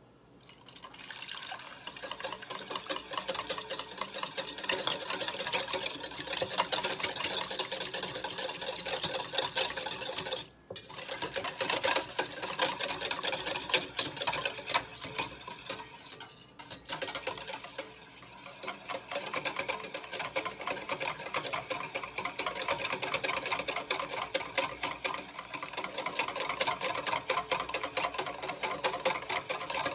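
Wire whisk beating an egg mixture in a stainless steel bowl: a fast, continuous rattle of the wires against the metal, breaking off briefly about ten seconds in.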